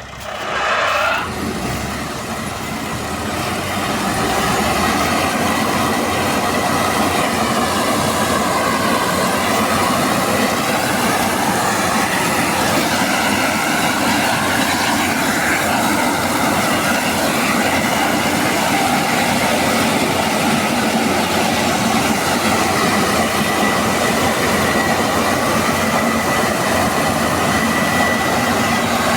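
Combine harvester running hard under load: a dense, steady mechanical din with a constant high whine. It grows louder over the first few seconds, then holds steady.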